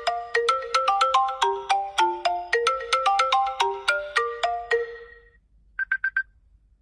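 iPhone ringtone: a quick, bright melody of short plucked-sounding notes repeating a phrase, fading out about five seconds in. Near the end come four rapid short beeps on one high pitch.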